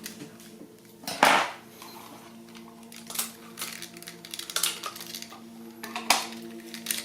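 Plastic pieces of a 4x4 Rubik's cube clicking and clacking as they are handled and fitted back into the cube. The loudest clack comes about a second in, and a few sharper clicks follow.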